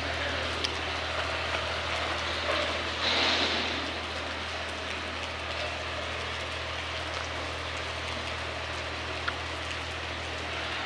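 Steady rain falling, an even hiss over a low steady hum, with a brief louder rush about three seconds in.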